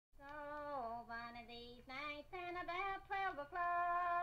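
Music soundtrack: a high solo voice singing a slow melody, holding long notes and sliding between some of them.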